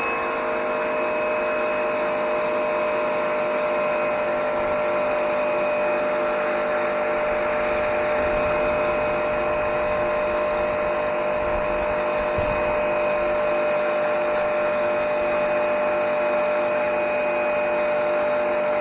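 Wall-mounted electric pressure washer running steadily, its motor and pump whining with several steady tones over the hiss of a narrow, finest-nozzle water jet blasting stains off concrete.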